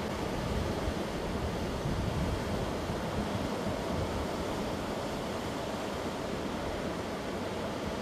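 Sea waves surging onto rocks along the shore: a continuous rushing wash of surf, a little fuller in the first couple of seconds.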